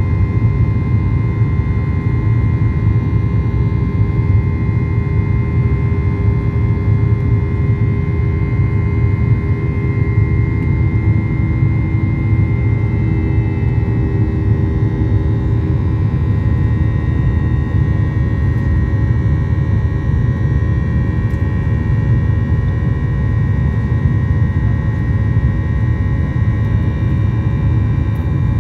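Inside the cabin of a Boeing 737-800 climbing after takeoff: a steady low rumble from its CFM56-7B turbofan engines with a steady whine over it, whose pitch drops slightly about halfway through.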